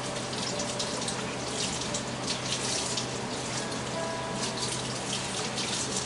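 Running water splashing steadily, as from a tap into a sink, over a low steady hum.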